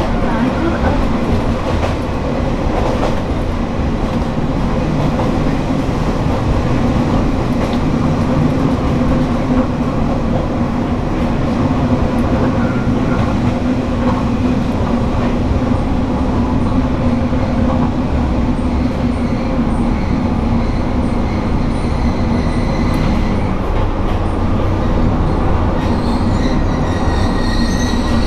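Diesel railcar heard from inside the passenger car: a steady engine drone and running noise of the wheels on the rails. Near the end, thin high-pitched squealing from the wheels and brakes joins in as the train slows alongside a station platform.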